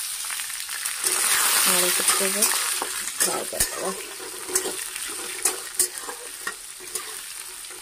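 Diced raw potatoes sizzling as they hit hot oil in a metal kadai. A metal spatula turns them, scraping and clicking against the pan. The sizzle starts sharply, is loudest in the first few seconds, then settles.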